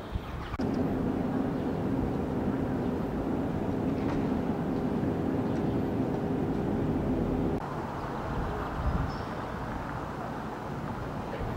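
A vehicle engine running with a steady, even hum, cutting off abruptly about seven and a half seconds in. After that there is quieter outdoor background noise.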